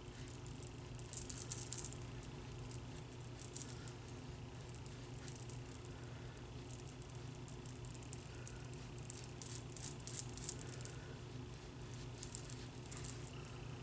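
Faint, light rustling and rattling in short irregular bursts from hands working makeup onto the face with a sponge, over a steady low hum.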